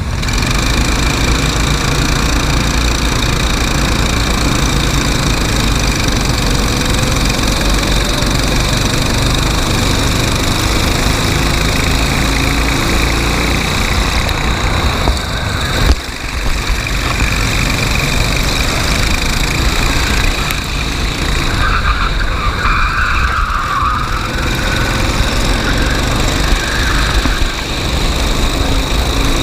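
Racing go-kart engine running loud and continuously during a race heat, with a brief drop about sixteen seconds in.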